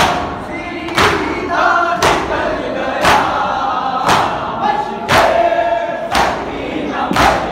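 Group of mourners doing matam, beating their chests in unison with sharp slaps about once a second, with a crowd of men's voices chanting the noha between the beats.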